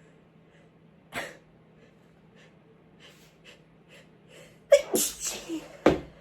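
Stifled sneezes brought on by chhinkni, a sneeze-inducing herbal snuff. One short sneeze comes about a second in, then a few quick sniffs, then a close cluster of louder stifled sneezes near the end.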